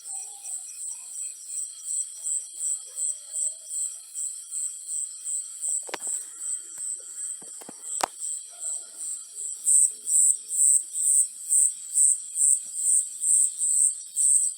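High-pitched insect chirping in an even pulse, about three chirps a second, stepping louder about two-thirds of the way through. Two sharp clicks sound near the middle.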